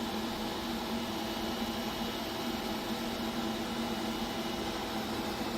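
Steady hum and fan noise from a powered-up HAAS VF-2SS CNC vertical machining center at its electrical cabinet, with two steady low tones under an even hiss.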